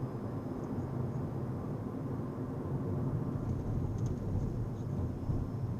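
Steady low rumble of a car in motion, road and running noise, with a few faint, brief high chirps about four seconds in.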